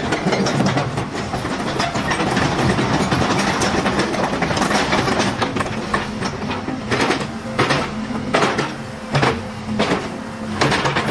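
Komatsu PC130 excavator's diesel engine running with a steady hum while the boom and bucket are worked hydraulically. From about four seconds in, a run of sharp, irregular knocks comes several times a second.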